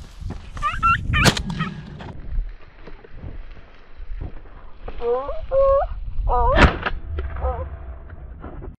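Podenco hounds yelping in short, excited bursts while chasing a rabbit. Two sharp shotgun reports cut through, one about a second in and a louder one about six and a half seconds in.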